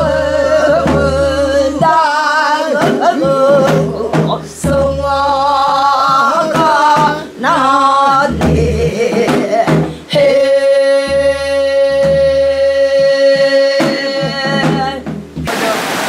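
Women's voices singing a Korean folk song in the traditional throaty, melismatic sori style, with wavering, bending phrases and one long held note near the end. Just before the end it cuts to rushing stream water.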